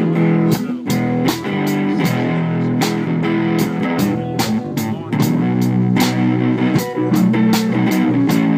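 Live band playing a blues-rock instrumental passage: guitar over a drum kit keeping a steady beat.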